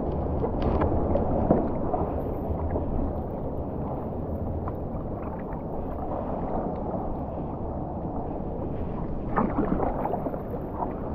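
Water sloshing and splashing around a stand-up paddleboard as it is paddled, with wind rumbling on the microphone. A few splashier paddle strokes come near the end.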